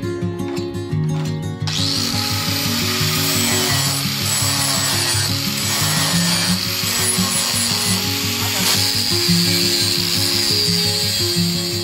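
Handheld angle grinder grinding a steel bracket, starting about two seconds in and running with a steady high whine and hiss of disc on metal. Acoustic guitar music plays underneath.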